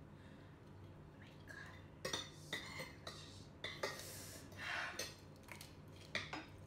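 Chopsticks clicking against plates and bowls while eating, a series of sharp clicks starting about two seconds in, mixed with chewing.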